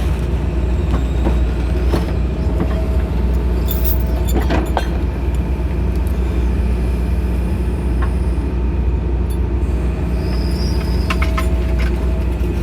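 John Deere excavator's diesel engine running steadily under a low drone, with a few light clicks and knocks about four seconds in and again near the end.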